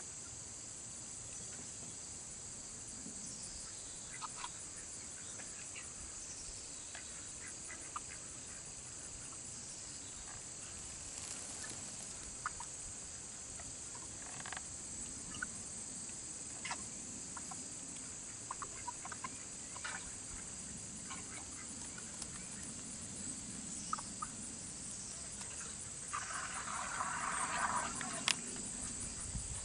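Steady high-pitched drone of crickets and other insects, with scattered short poultry calls and a denser burst of clucking calls near the end.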